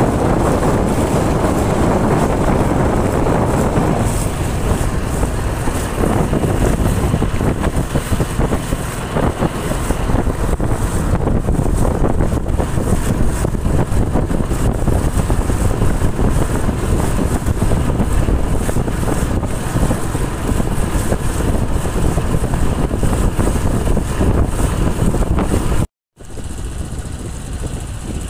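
Steady wind rumble on the microphone over a small boat's running engine and moving water. The sound cuts out for a moment about 26 seconds in, then resumes a little quieter.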